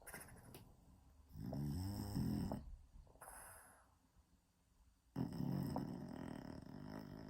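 French bulldog snoring in its sleep: two long, loud snores, each a second and a half to two seconds long, about three and a half seconds apart, with quieter breathing between them.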